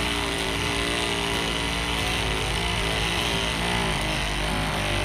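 INGCO CMLI2001 20 V cordless oscillating multi-tool running steadily, its blade cutting into a hard durian husk.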